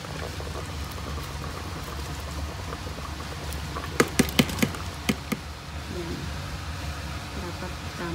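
Raw rice poured from a plastic container into a pot of broth, the grains pattering as they fall. About four seconds in comes a quick run of sharp taps, about six in a second and a half.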